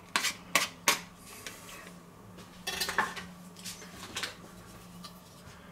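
A blue plastic dough scraper knocks sharply against a frying pan three times as chopped onions are shaken off it into the pan, followed by a few softer clacks of kitchen utensils, over a faint steady hum.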